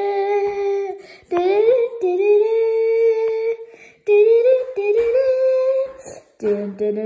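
An unaccompanied voice singing or humming long, held notes without words, in a few phrases broken by short pauses.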